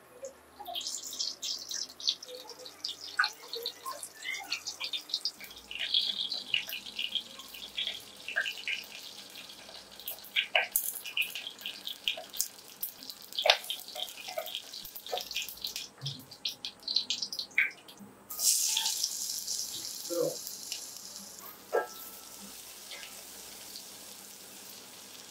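Hot mustard oil crackling and spitting in a steel pot, with many sharp pops, as dry red chillies fry in it. About eighteen seconds in, a loud sizzle starts suddenly as more ingredients go into the hot oil, then fades slowly while they are stirred with a wooden spatula.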